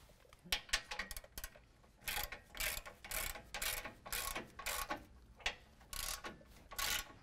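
Socket ratchet wrench clicking in repeated strokes, about two a second, as it tightens a nut and lock washer down on a frame bolt; a few scattered clicks come first, then the steady ratcheting starts about two seconds in.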